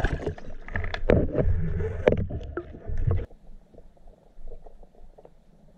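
Underwater water noise and knocks on the camera housing and spear, loud and rough, while a speared tilapia is handled on the shaft. About three seconds in it cuts suddenly to a much quieter, muffled underwater swim with a few faint knocks.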